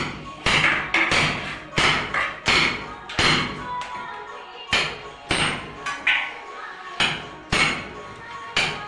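Sharp knocks and slaps from tools working cement render on a wall, repeated at uneven spacing about once a second, over background music.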